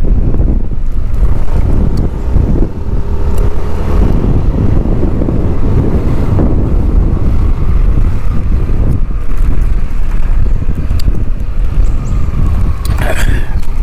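Loud, uneven low rumble of wind buffeting the microphone, mixed with motor-vehicle noise from the road.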